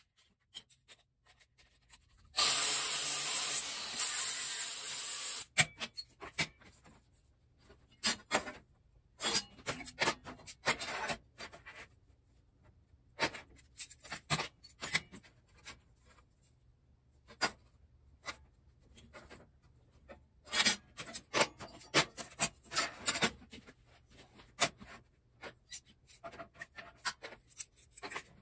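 Thin sheet steel being handled and bent on a steel welding table: scattered scrapes, clinks and taps of metal on metal. About two seconds in there is a loud burst of steady rushing noise that lasts about three seconds and stops abruptly.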